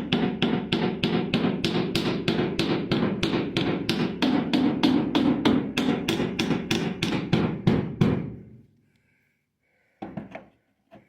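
Rapid, even hammering with a pair of Channellock pliers used as a hammer, tapping on car body sheet metal at about four to five blows a second; the blows stop about eight seconds in, followed by a couple of faint knocks near the end.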